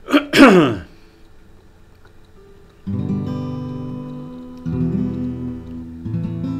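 Acoustic guitar strumming its opening chords from about three seconds in: three chords, each left to ring and fade before the next, about a second and a half apart. Right at the start there is a brief, loud sound sliding down in pitch.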